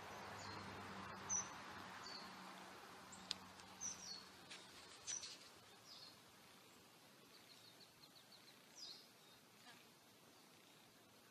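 Faint outdoor ambience with birds chirping now and then: short, high, falling chirps scattered through, and a quick run of high ticks about two thirds of the way in.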